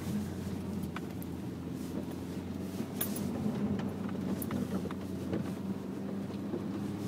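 Duster 4x4 engine running steadily, heard from inside the cabin, with scattered knocks and rattles as the car bumps over a rutted, muddy dirt track.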